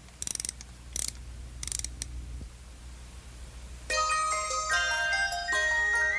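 A clockwork mechanical bird being wound up, its key ratcheting in three short strokes, then about four seconds in it starts playing a bright, tinkling music-box tune.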